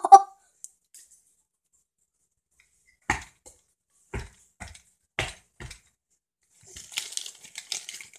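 Handling noise on a phone camera held close: five short sharp taps and knocks spread over a few seconds, then a scraping rustle near the end.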